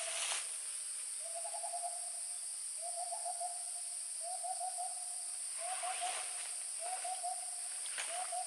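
An unidentified wild forest animal calling over and over: six short hooting calls about a second and a half apart, each starting with a quick stutter and ending on a held note. A steady high insect drone runs underneath.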